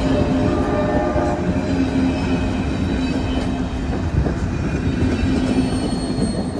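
Passenger cars of a train rolling past close by: a steady, loud rumble of steel wheels on the rails with occasional knocks, and a held pitched tone running through much of it.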